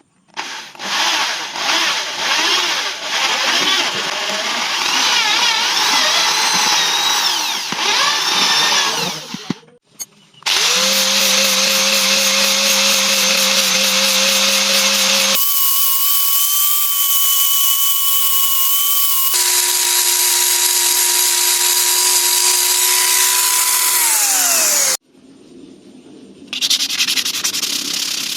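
Electric power tool working material, then heard in a run of short cut-together clips, each running at its own steady pitch. The last clip winds down with a falling whine.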